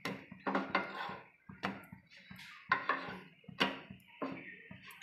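Bread slices being turned and moved by hand on a black griddle (tawa): irregular light taps and scrapes as the slices drop and slide on the pan.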